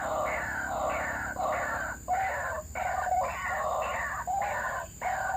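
White-breasted waterhen (ruak-ruak) calling: a rapid run of harsh, repeated croaking notes, about two a second.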